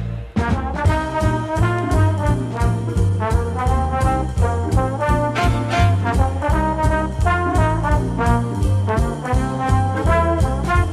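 Big band brass section, trombones and trumpets, playing a swing arrangement over a steady beat, after a short break right at the start.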